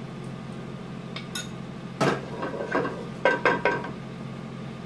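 Metal kitchenware clinking: a few sharp clinks with a brief ring, loudest about two seconds in and again a little past three seconds, over a steady low hum.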